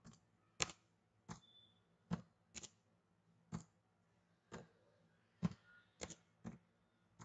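Computer keyboard keys pressed one at a time, about ten separate faint clicks at uneven intervals, over a faint low hum.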